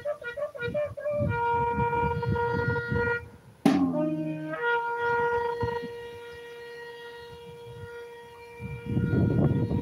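Shofar being blown: a short wavering blast, then a steady blast of about two seconds, then after a sharp click one long held note lasting about five seconds that slowly fades.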